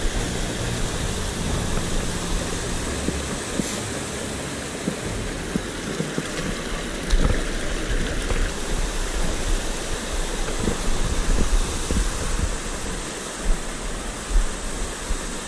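Mountain stream rushing over rocks: a steady hiss of water.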